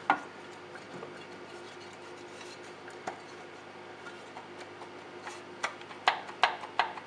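Light clicks and taps of small parts being handled by hand: one sharp click at the start, then a cluster of clicks in the last two seconds, over a steady faint hum.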